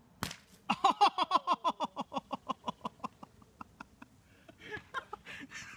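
A hockey puck hits a sheet of half-inch drywall with a single sharp crack, punching a hole through it. Just after, a louder rapid run of pitched, call-like notes, about eight a second and each dropping in pitch, slows and fades out over about three seconds.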